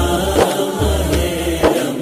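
Music from an Urdu Ramadan song between sung lines: a steady beat of deep bass pulses and drum hits under a sustained melody.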